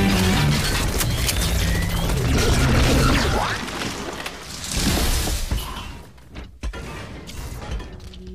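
Action-film battle sound effects with music underneath: dense crashing and debris noise, a swelling whoosh about five seconds in, then the level drops, with a few sharp clicks.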